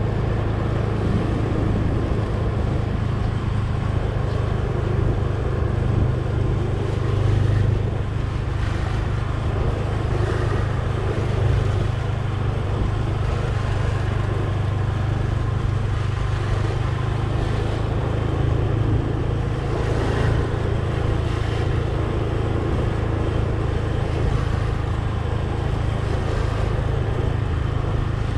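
A road vehicle's engine running at a steady cruise with tyre and wind noise, heard from on board while driving. A constant low hum that neither rises nor falls.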